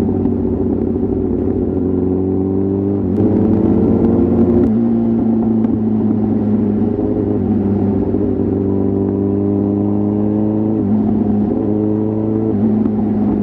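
Kawasaki ZX-10R inline-four sportbike engine and exhaust under way, its note slowly climbing and dropping abruptly four times as the rider shifts gears.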